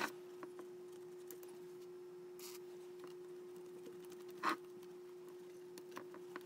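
Handling sounds from cleaning inside a car cassette deck's tape mechanism with a cotton swab: two short knocks against the metal chassis, one at the start and one about four and a half seconds in, with a brief scrape and light ticks between them. A steady faint hum runs underneath.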